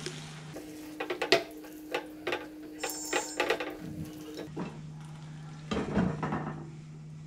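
Steel spoon stirring a frying pan of thick masala, clinking and scraping against the pan many times, then a glass lid set down on the pan about six seconds in.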